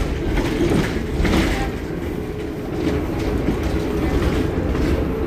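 Heuliez GX 327 city bus idling while stopped: a steady, even engine rumble.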